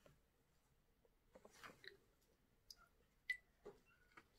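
Near silence: room tone with a few faint, short clicks and taps, the clearest about three seconds in, from paint pots and brushes being handled on a table.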